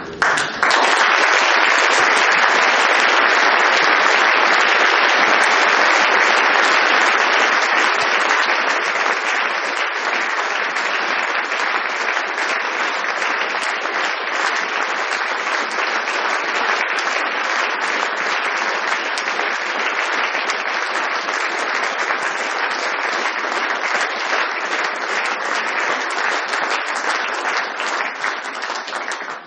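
Audience applauding, a dense continuous clapping that starts about half a second in, is loudest for the first several seconds, goes on a little softer, and stops abruptly at the end.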